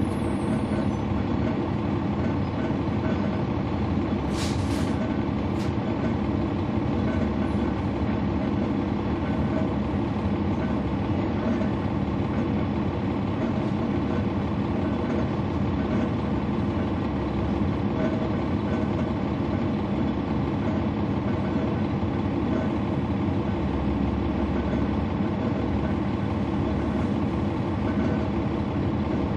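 Cummins ISL9 diesel engine of a 2011 NABI 416.15 transit bus, heard from the back seat inside the cabin, running at a steady drone with no rise or fall in pitch; the ZF Ecolife automatic transmission is hard to pick out beneath it. A short hiss sounds about four and a half seconds in.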